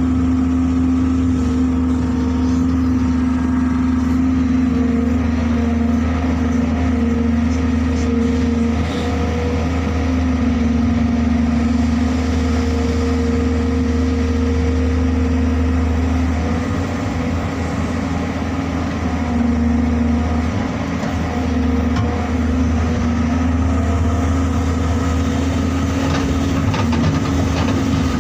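JCB excavator's diesel engine running steadily under working load, with a deep hum that shifts and dips a little about halfway through as the machine works.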